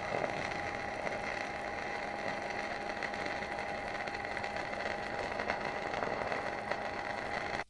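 Small electric motor of a power tool running steadily, with a constant whine over a rough mechanical noise.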